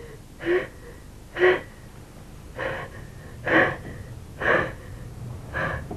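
A woman gasping for breath in fright, about six sharp gasps roughly a second apart, a few with a short whimper: panting from a nightmare.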